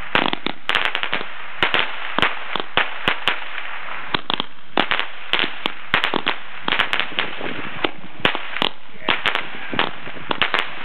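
Multi-shot firework battery ("the 96") firing after one fuse is lit: a rapid, irregular string of sharp pops, several a second, that keeps going throughout.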